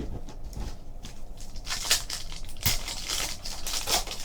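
Trading card pack wrapper being torn open and crinkled by hand, with crackling bursts in the second half.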